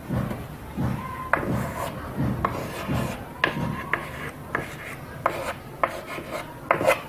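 Chalk writing on a wooden blackboard: a run of short scratching strokes as letters and a numeral are written.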